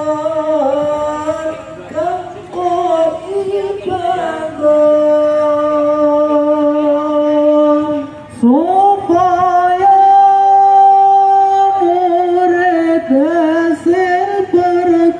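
A single voice chanting in long held notes with wavering melodic ornaments. It breaks off about eight seconds in and comes back with a rising slide into the next long note.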